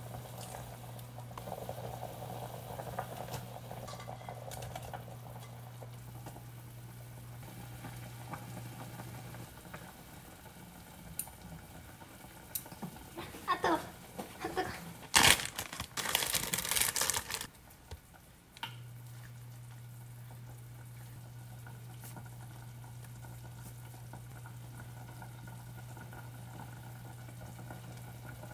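Pot of water at the boil on a stovetop over a steady low hum. Partway through, for a few seconds, metal tongs clink and clatter against the pot.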